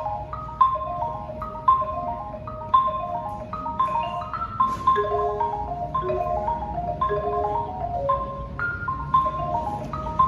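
A solo mallet keyboard instrument played live: a fast, repeating figure of struck notes in the middle-high register, with the loudest accented strikes coming about once a second.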